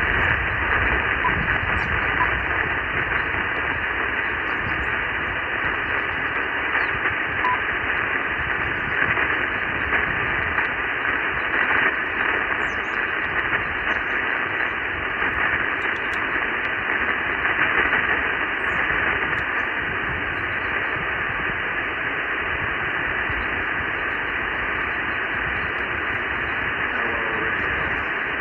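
Steady receiver static hissing from a ham radio transceiver's speaker in sideband mode, cut off above about 3 kHz, as it listens on the RS-44 satellite downlink.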